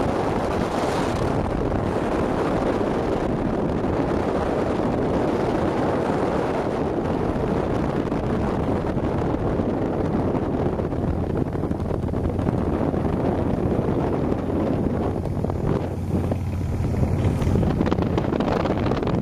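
Wind rushing over the microphone of a moving motorbike, with the bike's engine running underneath as a steady low hum that is a little stronger in the latter part.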